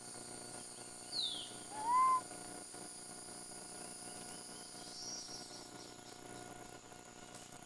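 Forest ambience with a steady high insect drone. About a second in a bird gives a quick falling whistle, then a louder short arched whistle, rising and falling, just after two seconds. A faint high call follows near five seconds.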